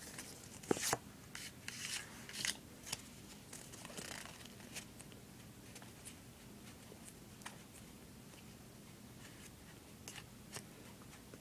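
Pokémon trading cards being handled: several soft rustles and clicks of cards sliding against each other in the first few seconds, then quiet handling with a few faint ticks as the cards are fanned in the hand.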